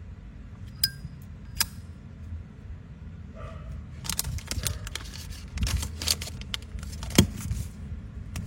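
Metal Zippo lighters handled: two sharp clicks near the start, then a busy run of metallic clicks and clinks, the loudest a little after seven seconds in.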